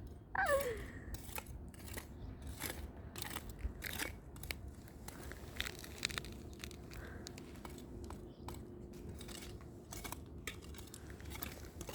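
A short falling call about half a second in, most likely a meow. After it come irregular faint clicks, crunches and rustles as the cat shifts about in a flowerpot of soil and leaves.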